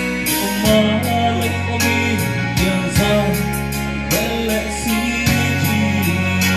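A man singing a gospel song in Mizo into a handheld microphone, over a recorded backing track with a steady beat.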